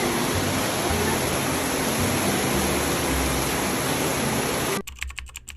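Steady, loud rushing noise that cuts off suddenly near the end, replaced by a quick run of sharp clicks like typing on a keyboard.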